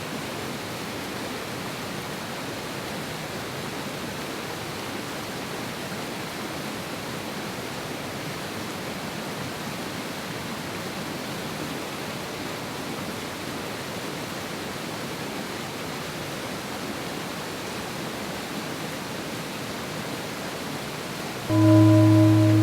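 Mountain river water rushing steadily. About a second before the end, a bell-like tone is struck and rings on.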